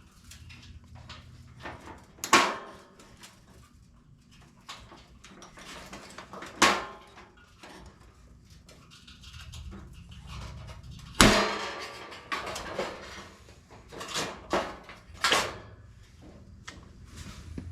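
Hands-on construction work: scattered light knocks and clicks with four loud sharp impacts several seconds apart and a cluster of smaller ones near the end.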